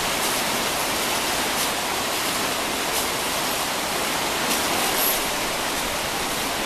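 Shallow river rushing steadily over rocks, with a few faint splashes as water is thrown from buckets over bathing elephants.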